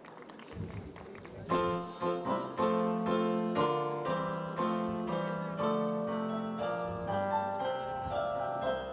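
A keyboard playing slow piano chords over a bass line, coming in about a second and a half in after a quiet opening, the chords changing about once a second.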